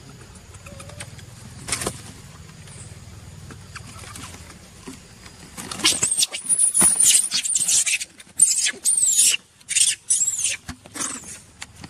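Long-tailed macaque screaming: a series of shrill, pitch-bending shrieks in broken bursts that start about halfway through. It is the fear scream of a monkey in a chase.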